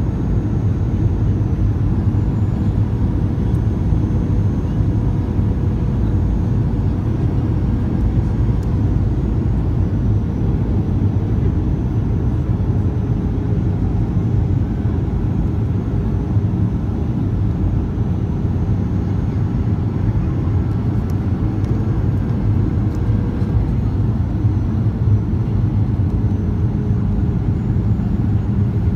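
Aircraft cabin noise in flight: a loud, steady rumble of engines and rushing air, with a faint held hum above it.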